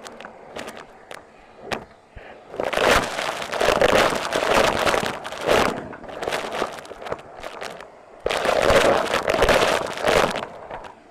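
Numatic Hetty vacuum cleaner's floor tool pushed over the floor, crackling and rattling as it sucks up grit. It comes in two long passes with scattered clicks between them.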